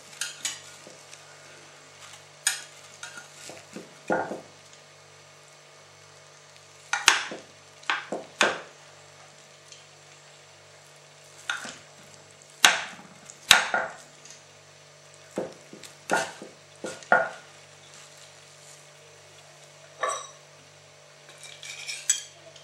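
Metal serving utensils cutting and lifting a baked potato gratin in a ceramic baking dish: irregular scrapes and clinks of metal against the dish, one every second or two.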